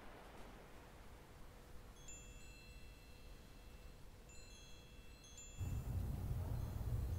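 Chimes ringing in two short clusters of high, thin tones that hang and fade, over a faint hiss. About five and a half seconds in the sound cuts abruptly to a much louder, steady low rumble.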